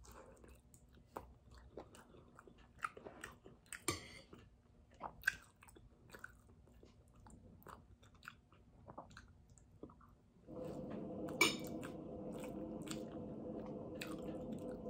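Close-up chewing and mouth smacks of a person eating spicy pork ribs and rice by hand, with small clicks and a few louder smacks. About two-thirds of the way through, a steady hum suddenly starts and keeps going under the chewing.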